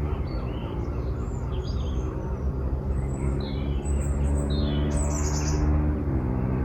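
Small birds chirping in short, high calls over a steady low engine hum, which drops slightly in pitch near the end.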